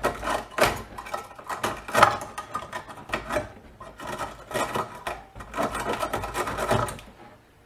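Irregular scraping and rubbing strokes, a few a second, with the loudest about two seconds in, dying away near the end.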